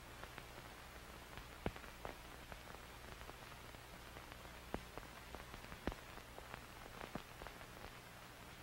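Faint steady hiss over a low hum, with scattered soft clicks and crackles and a few sharper pops, the loudest a little under two seconds in and about six seconds in.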